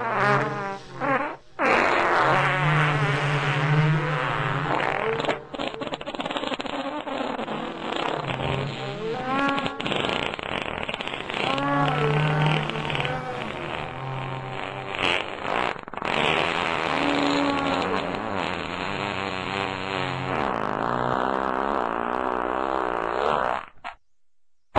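The unexplained 'strange sound' reported in Guaynabo: a loud, low, drawn-out groaning drone with a wavering, sliding pitch that swells and falls, then stops abruptly near the end.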